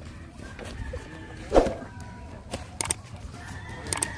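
Chickens clucking in the background, with one short loud thump about one and a half seconds in and a few sharp clicks near the end.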